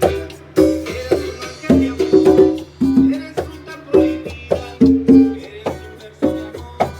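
A band playing an instrumental passage without singing: plucked notes over a held bass line, with sharp percussion clicks marking a steady beat.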